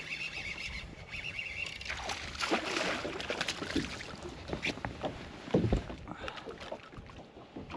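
A fishing reel being cranked fast, with an even high chatter, as a hooked bass is brought in. Then splashing as the fish is swung out of the water, and a heavy thump on the boat deck about five and a half seconds in.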